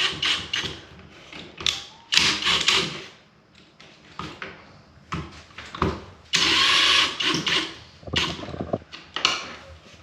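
Cordless drill/driver running in short bursts, driving screws to fasten a smoke detector mounting bracket; the longest run is a steady second or so about six seconds in, with clicks and handling noise between.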